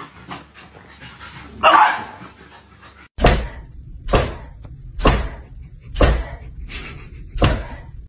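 Dog barking: one bark about two seconds in, then five short, sharp barks spaced about a second apart.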